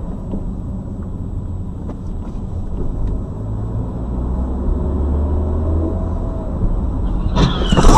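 Engine and road noise of a car driving, heard from inside the cabin: a steady low rumble that grows louder as it goes. About seven seconds in, a sudden louder noise cuts in.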